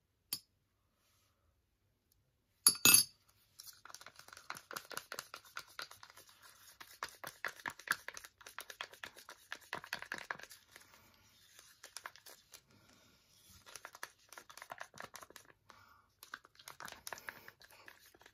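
A wooden craft stick stirring instant espresso powder into thick matte gel medium in a clear plastic cup: a long run of rapid scraping ticks against the cup. It is preceded by a metal spoon clinking on a ceramic cup, sharply once nearly three seconds in.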